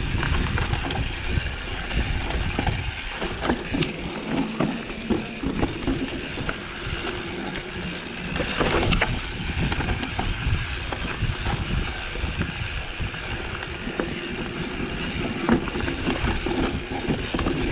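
Mountain bike riding down a leaf-covered dirt trail: continuous rattling and clatter of the bike and tyres over the rough ground, with scattered sharper knocks and a low rumble.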